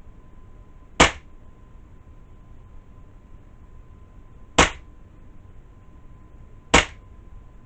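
SIG Sauer P226 X-Five CO2 blowback BB pistol firing three single shots, each a short sharp crack: about a second in, at about four and a half seconds, and near seven seconds. A faint steady high hum sits underneath.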